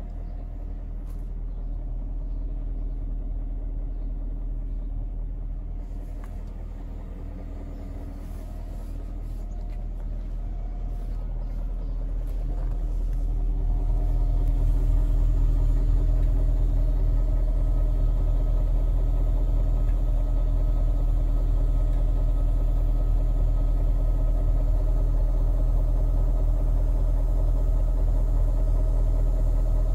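BMW 740i E38's 4.4-litre V8 idling steadily while warming up after a cold start in frost. The sound grows louder about halfway through and then holds even.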